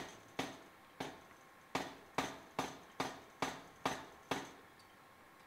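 Power hammer striking a glowing block of high-carbon steel about ten times, roughly two blows a second, each a sharp knock that dies away quickly. The hot steel is being squared and thickened under the hammer. The blows stop about four and a half seconds in.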